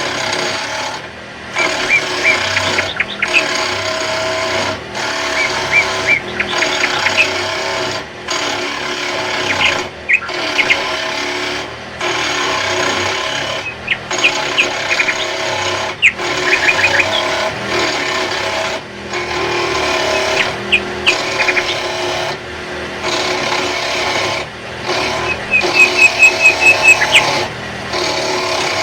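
A tool scraping and rasping across wood in long repeated strokes, each about two seconds, with short breaks between them. A quick run of sharp ticks comes near the end.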